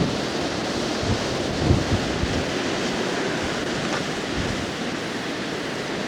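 Blizzard wind blowing steadily and buffeting the camcorder microphone, with irregular low gusty thumps.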